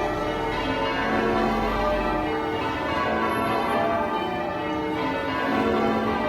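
Church bells in change ringing, one overlapping stroke after another in a steady run of changes.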